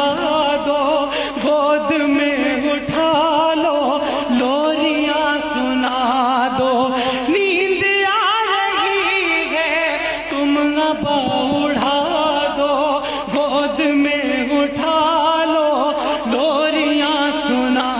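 A noha, a Shia lament, chanted by a solo voice in long, wavering ornamented lines over a steady low drone.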